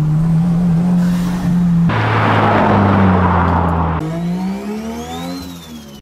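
Subaru WRX's turbocharged FA24 flat-four engine running with a steady drone, joined by a louder rushing sound about two seconds in. After a sudden change near four seconds the engine revs up, and a high whistle climbs and then falls away as the sound fades at the end.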